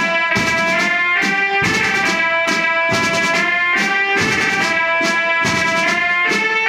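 Marching drum band playing: a horn melody moves note by note over steady snare and bass drum beats.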